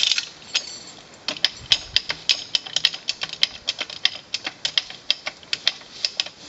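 Hand-lever ratchet winch on a horse-drawn timber trailer being pumped, its ratchet clicking sharply about four times a second as the logs are winched up.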